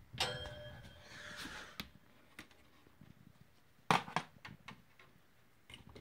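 Clunks and clatter of a box fan being handled and turned around by hand, with a brief ringing clank at the start, light clicks, and one sharp knock about four seconds in.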